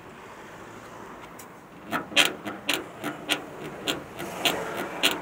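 Rear fender of a 1941 Ford pickup squeaking against the body at the panel gap: a run of short chirps, about three a second, starting about two seconds in. This is the chirruping squeak being tracked down.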